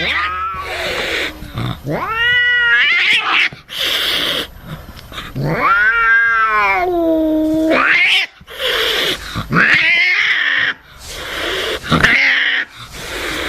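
An angry domestic cat yowling in several long, wavering wails, the longest about halfway through. Short hisses fall between the wails.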